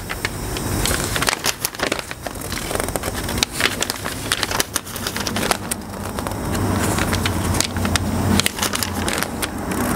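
Paper instruction-manual sheets rustling and crinkling as they are handled and turned, in many quick crackles. A low steady hum comes up underneath in the second half.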